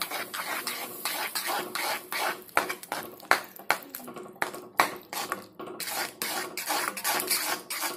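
Steel spatula stirring semolina into simmering vegetables and water in a pan for upma, scraping and knocking against the pan in quick, irregular strokes.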